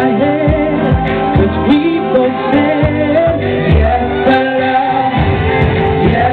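Male pop singer singing live into a handheld microphone over backing music with a repeating bass line, a pop song performed through the sound system.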